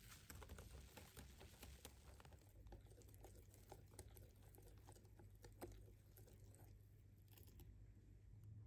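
Faint wire whisk beating flour into pancake batter in a glass bowl: quick, uneven clicks of the wires against the glass over a soft swishing.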